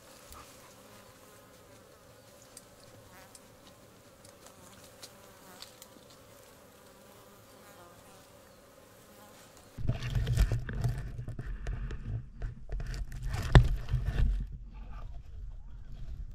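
A buzzing insect, faint at first. From about ten seconds in, a much louder stretch of low rumble and knocks lasts about four seconds.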